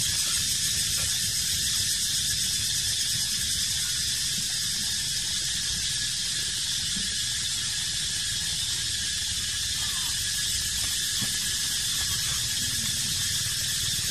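Steady outdoor ambience: an even high-pitched hiss or buzz over a low rumble, with no clear calls standing out.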